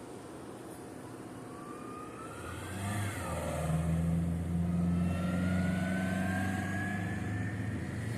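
A car pulling away and accelerating close by: its engine note swells about two and a half seconds in and holds, with a whine that climbs steadily in pitch.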